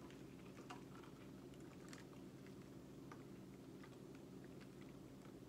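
Faint chewing of a mouthful of burger, with scattered small mouth clicks over a low steady hum.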